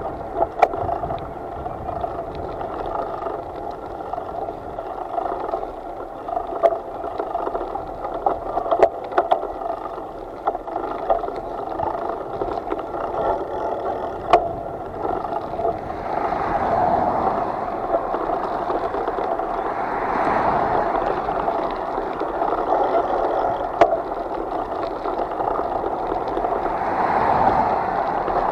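Water gurgling and sloshing steadily, swelling louder a few times in the second half, with a few sharp knocks.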